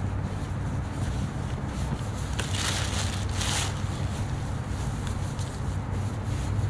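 Bread being torn and crumbled by hand into a plastic bucket, with a louder rustling tear about two and a half seconds in, over a steady low background rumble.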